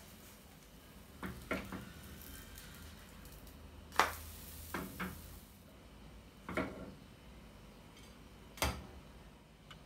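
A silicone spatula knocks and scrapes in a small non-stick frying pan as a pancake is loosened and turned, then the pan knocks against a plate as the pancake is slid off. There are about half a dozen short, sharp knocks, the loudest about four seconds in.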